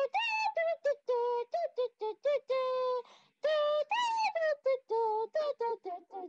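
A high female voice singing a quick, choppy tune in many short notes, with a few longer held notes.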